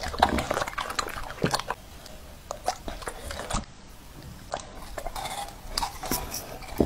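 A dog chewing and crunching pieces of apple, with irregular wet bites and crunches.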